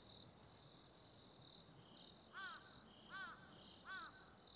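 Faint evening insect chorus: crickets chirping high and steadily, a few times a second. Near the middle a bird calls three times, short arched notes about three-quarters of a second apart, louder than the insects.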